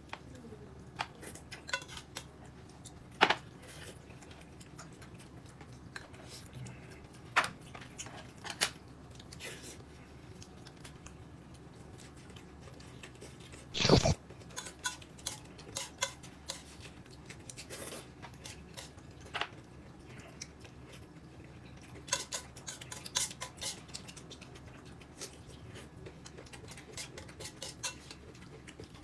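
Cutlery clinking against dishes and bowls while someone eats, in scattered sharp clicks, with one louder knock about halfway through.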